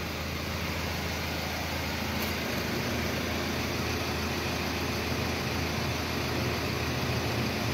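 Steady, even low mechanical hum with a faint drone of a few held tones, like a motor or engine running at idle.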